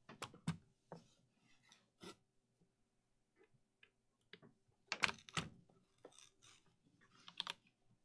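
Irregular clicks and knocks of a mechanical keyboard being set down and handled on a desk mat, with a few scattered key presses. The loudest cluster comes about five seconds in, and another near the end.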